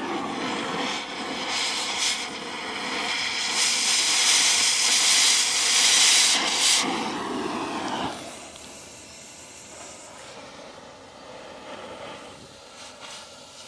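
Stick-welding arc crackling and hissing as a rod is run on a steel pipe cattle-pen post, loudest about four to seven seconds in. The arc stops about eight seconds in, leaving a quieter steady hum.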